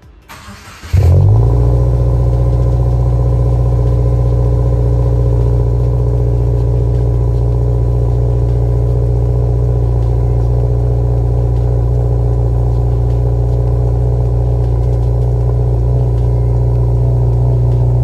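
2022 Subaru WRX's 2.4-litre turbocharged flat-four starting through an Invidia R400 catback exhaust. The starter cranks briefly and the engine catches about a second in with a short flare, then settles into a steady idle.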